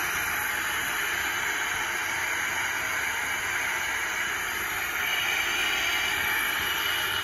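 Biogas-fed single gas burner flame hissing steadily, burning at full force.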